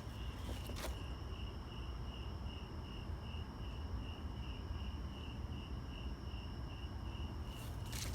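An insect chirping steadily in a high, even pulse about three times a second, with a fainter continuous high tone alongside, over a low outdoor rumble; one footstep sounds about a second in.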